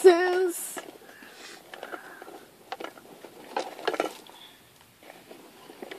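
Small plastic toy figures clicking and knocking together as they are handled and rummaged through, in scattered light taps with a few louder knocks about three to four seconds in.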